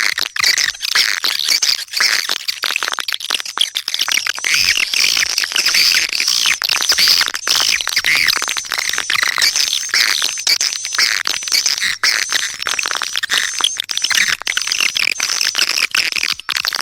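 Swiftlet lure call track: a dense, unbroken chorus of high twittering chirps and rapid clicking calls of swiftlets. It is the kind of recording played to attract swiftlets to roost and nest in a swiftlet house.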